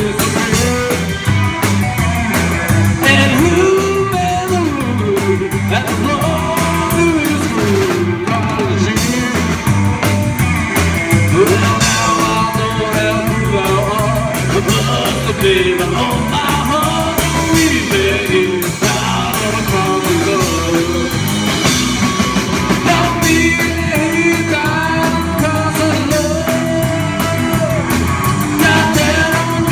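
A small rock band playing live: electric guitar, upright double bass and drum kit, with a steady beat.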